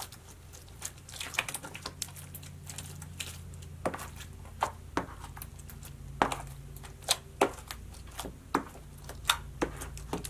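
Homemade borax glitter slime being pressed and squished by hand, giving irregular sticky clicks and pops as it is pushed and pulled apart.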